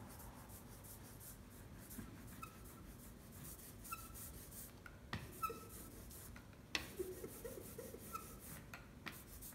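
Rubber brayer rolling black ink across a carved lino plate, a faint, nearly silent rubbing with a few soft clicks. The quietness is the sign of a thin, even ink film, not a squelchy, overloaded one.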